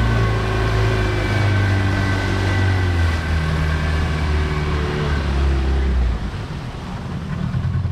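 Outboard motor running steadily, driving a small boat through the water, with water and wind rush. About six seconds in, the engine's low drone drops away, leaving only the hiss of water and wind.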